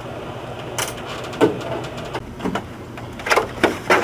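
Plastic back case of a flat-screen LCD TV being pried apart and handled: a series of sharp plastic clicks and knocks, closer together near the end.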